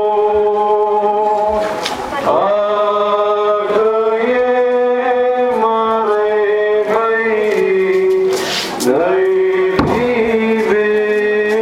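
Men's voices chanting a slow Orthodox liturgical hymn, a strong lead line holding long notes that step up and down over a steady lower tone.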